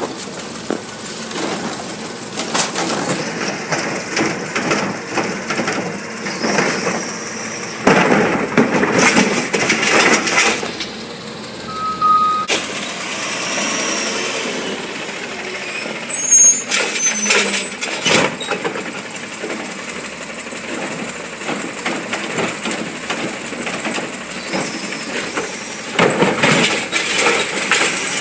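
Recycling truck at work: its engine runs under load, broken by loud clattering bangs as bins are emptied into it and the load is packed.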